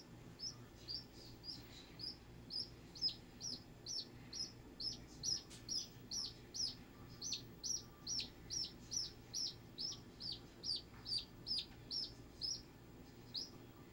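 Duckling peeping over and over, about two high peeps a second, each one falling in pitch at its end.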